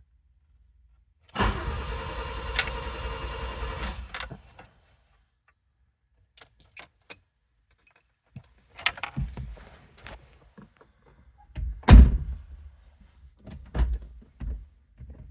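A 1987 Alfa Romeo that will not start: a steady electrical buzz for about three seconds, with a click partway through, and the engine never catches. Then come scattered clicks and rattles and a sharp thump about twelve seconds in.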